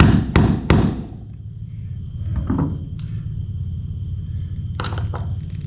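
Screwdriver being worked in behind a stuck screw in a wooden boat plank to pry it out: three sharp knocks in quick succession at the start, then scattered softer scrapes and clicks, over a steady low hum.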